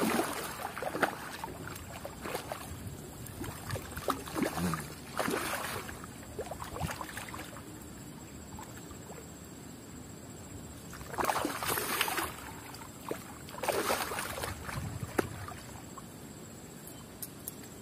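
A hooked fish thrashing and splashing at the water's surface against the line, in several loud bursts with quieter stretches between.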